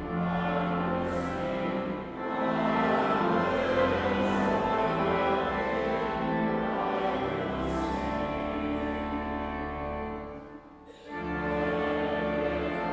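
Slow orchestral classical-style music with long held chords. It drops away briefly near the end, then comes back in.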